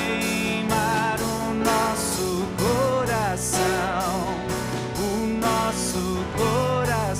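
Worship music: a slow Christian praise song with a voice singing long, wavering notes with vibrato over sustained accompaniment and a steady beat about twice a second.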